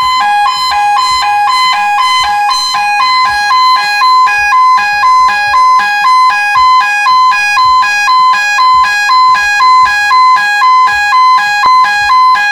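Industrial alarm sounder giving a loud electronic two-tone alternating alarm: a higher and a lower tone switch back and forth about twice a second, becoming more sharply pulsed about four seconds in. The tone pattern is being set on the sounder board's DIP switches.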